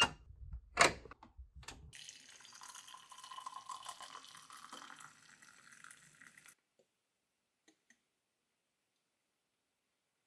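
Three sharp knocks, then water running from a kitchen tap for about four and a half seconds before it is turned off suddenly.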